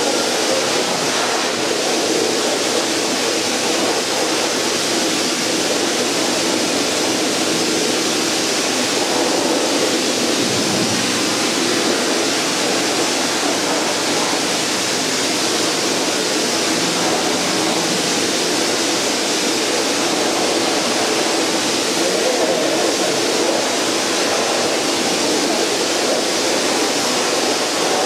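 Self-serve dog wash station's hose running steadily, a loud even rush as it is worked over a wet dog in the stainless tub.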